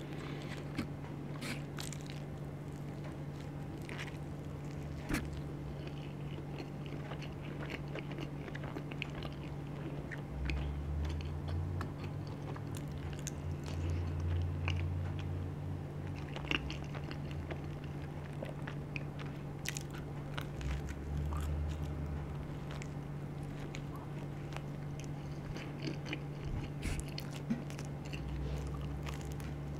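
Close-miked biting and chewing of charcoal-dough pizza crust, with scattered crunches and wet mouth clicks over a steady low hum.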